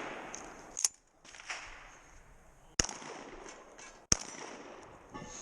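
Shotgun fired three times, a second or two apart, each sharp report trailing off in a long echo.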